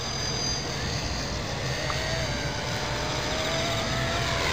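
Electric radio-controlled model aircraft motor and rotor whine: a steady thin tone that drifts slowly upward in pitch, over a low noisy rumble.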